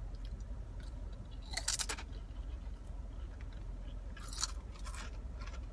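A person chewing and crunching crunchy food close to the microphone: a quick run of crunches a little under two seconds in and more around four and a half seconds in.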